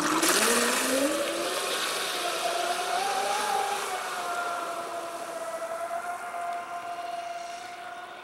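Pro Boat Zelos 36 Twin RC catamaran's twin brushless motors on a 6S LiPo, accelerating hard across the water. A whine rises in pitch over the first few seconds, then holds steady and fades as the boat runs away. Spray hisses loudest near the start.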